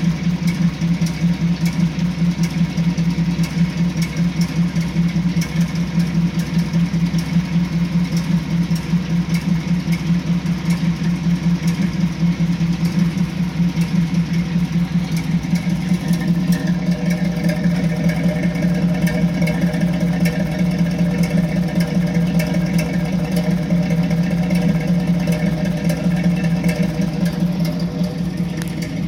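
1986 Chevy C10's 350 small-block V8 idling with a rapid, uneven pulsing, which the owner suspects is a misfire. A few higher tones grow stronger about halfway through.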